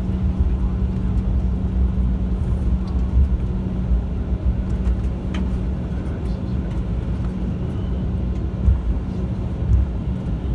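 Cabin noise of an Embraer E195 taxiing: its GE CF34-10E turbofans at idle give a steady low drone over an uneven rumble from the wheels rolling on the taxiway.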